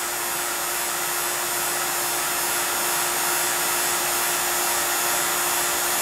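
Refrigeration vacuum pump running steadily with a constant hum and hiss, evacuating an HVAC system.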